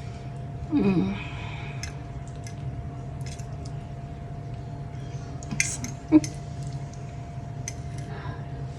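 A woman gives an appreciative "mmm" at a bite of food, then scattered light clicks and taps of cutlery on a plate as she eats, with one sharper click about six seconds in, over a steady hum.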